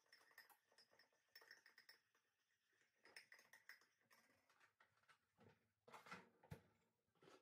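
Near silence: the sound is turned right down, leaving faint room tone with scattered faint clicks and knocks, slightly louder about six seconds in.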